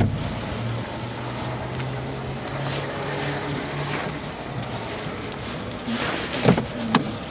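A 2003 Mercedes-Benz E320's engine idling with a low steady hum. A sharp knock comes right at the start, and a few lighter knocks about six and seven seconds in.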